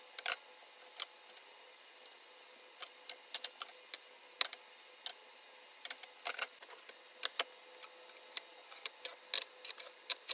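Ripped plywood strips clacking and knocking against one another and the bench top as they are handled and laid out: a string of irregular, sharp wooden clicks.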